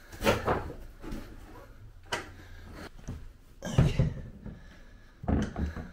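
Cardboard shipping box and packing being handled as a Onewheel GT electric board is lifted out, with a few separate knocks and dull thumps; the loudest come a little before four seconds in and again a little after five.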